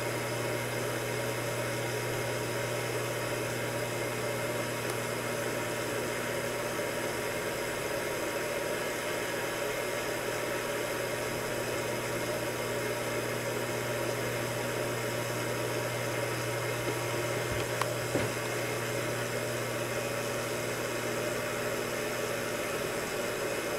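Steady machine hum: a constant low drone under an even hiss, with two faint knocks about three-quarters of the way through.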